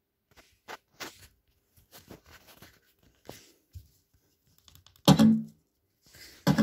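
Faint scattered clicks and taps, then two loud, low booming hits about a second and a half apart from a JBL Flip 3 SE portable Bluetooth speaker. Each hit has a short low hum, and they are the first bass notes of the test track.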